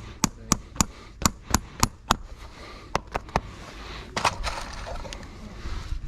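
Farrier's hammer striking metal in a quick run of sharp, ringing blows, about three a second. After a short pause come three more quick blows, then a brief scraping noise about four seconds in.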